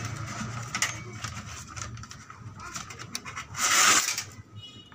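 Thin steel blade of a homemade flexible sword, ground from an old hand saw, scratching and rubbing over paper pages. About three and a half seconds in it slashes through the paper in one loud swipe lasting about half a second.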